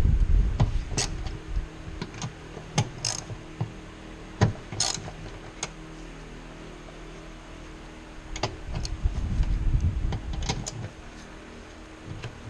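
Workshop handling noise: scattered sharp metallic clicks and clinks of tools and parts, with two spells of low rumbling and scraping, near the start and again near the end, over a steady low hum.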